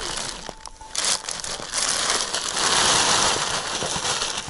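A plastic bag rustling and crinkling as it is handled and shaken, tipping a catch of perch out onto the snow.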